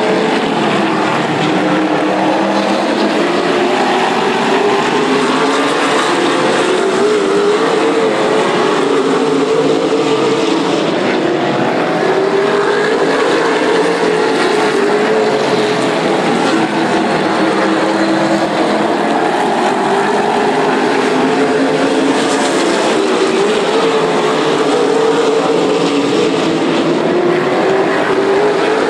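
A field of late model stock cars racing around a short oval, several V8 engines running at once, their pitch rising and falling as the cars go around.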